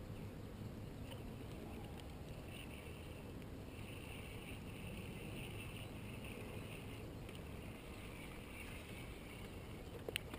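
Faint steady background on open water, with a thin high hiss that comes and goes from about two and a half seconds in, and a brief click just before the end.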